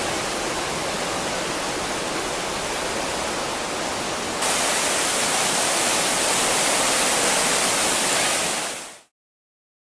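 Swollen river in flood, fast brown water rushing in a steady, dense wash of noise. About four and a half seconds in it becomes louder and brighter, then it fades out near the end.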